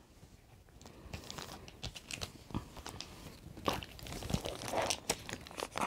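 Photocards and plastic binder sleeves being handled: a run of small, irregular crinkles and clicks, starting after about a second and getting busier toward the end.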